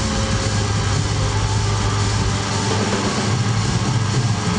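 Sustained wall of distorted electric guitar noise and feedback from a live band, with a steady low drone and no drumbeat.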